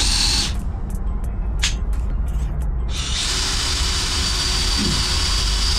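Cordless drill running in two goes, a short burst at the start and then a steady run of about three seconds from about halfway, its motor whine holding one pitch. The drill is stuck, its bit tangled in a plastic bag inside a hole in the brickwork.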